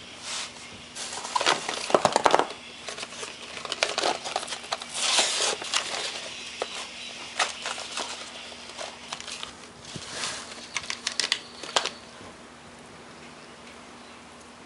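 Irregular clicks, rattles and crinkling of small objects being handled, stopping about twelve seconds in, over a faint steady hum.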